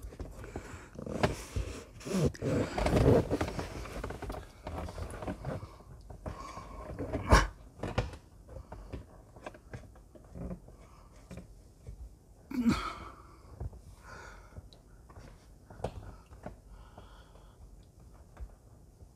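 Rustling and scraping of car carpet and plastic trim being worked and pushed into place in a footwell, with two sharp knocks, one near the middle and one later.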